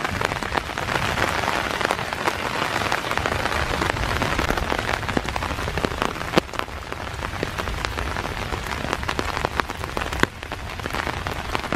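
Steady rain falling on leaf litter in the woods, with many sharp ticks of single drops landing close by.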